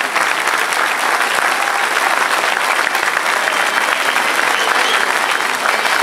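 Crowd applauding: many hands clapping together in a dense, steady patter.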